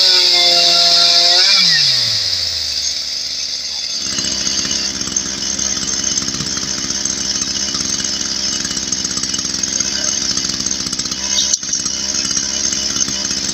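Chainsaw engine at high revs, dropping away steeply about a second and a half in, then running on steadily at a lower pitch.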